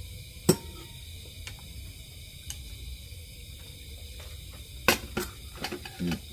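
Metal spoons and a ladle clinking against ceramic bowls as soup is served and eaten: a sharp clink about half a second in, then a few more close together near the end, over a steady high-pitched background drone.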